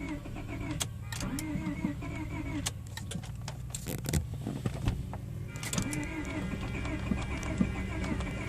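Honda Prelude's starter cranking the engine over in a steady, repeating rhythm without it catching. The pattern breaks off about halfway and resumes for a second attempt. It is a crank-but-no-start that the owner traced to a faulty ignition switch.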